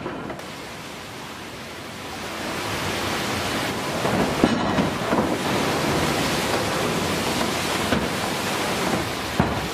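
Water wheel in operation: a steady rush of falling water that swells about two seconds in, with a few heavy knocks.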